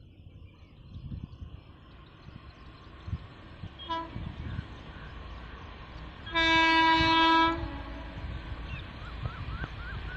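Indian Railways electric locomotive's horn from an approaching train: a brief toot about four seconds in, then one long blast of just over a second, the loudest sound, over a low steady rumble. A few short chirps near the end.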